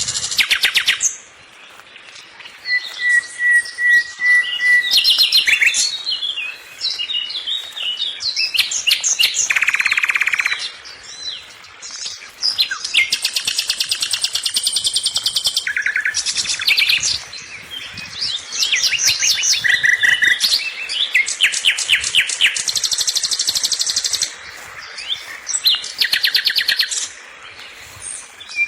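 Songbird singing at close range, a long run of rapid high trills and buzzy repeated phrases with short pauses between them, and a steady whistled note a few seconds in.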